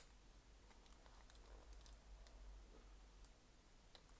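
Near silence with a few faint clicks from fingers handling a diamond painting canvas.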